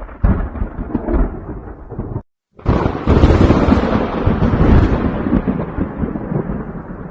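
Thunder rumbling in two parts: a first stretch that cuts off suddenly about two seconds in, then, after a short silence, a louder, long rolling rumble that slowly dies away.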